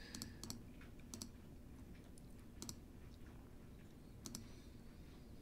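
Faint, irregular clicks, about half a dozen with a couple in quick pairs, from a stylus tapping on a drawing tablet.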